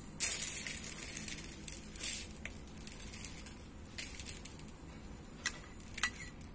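Granulated sugar pouring onto cut strawberries in a bowl: a dry hissing patter that starts just after the beginning and fades over about two seconds, with smaller trickles after. A few sharp clinks come near the end.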